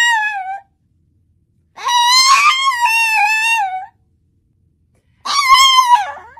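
Small tan dog howling in high, wavering tones: a howl trailing off in the first half-second, a long howl from about two to four seconds in, and a shorter one near the end that drops in pitch as it fades.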